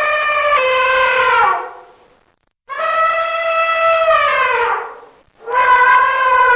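Elephant trumpeting: long, loud calls, each holding a steady pitch and then dropping at the end. One call fades out about two seconds in, a second runs from about three to five seconds, and a third starts just before the end.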